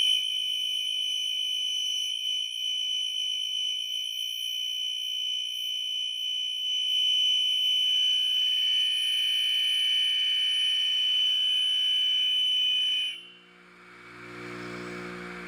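A Baldor carbide grinder cutting with a steady high-pitched squeal, the sign of chatter in the cut. The squeal stops abruptly about thirteen seconds in, and softer machine noise follows.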